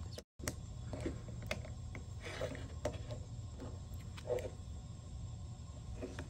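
Irregular light clicks and taps of a pry tool and fingertips against a cracked phone screen and its metal frame, over a steady low hum.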